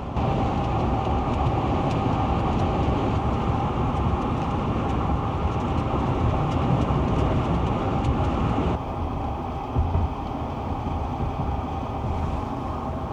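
Road and engine noise inside a moving pickup truck's cab: a steady low rumble with a faint steady hum above it, dropping a little in level about two-thirds of the way through.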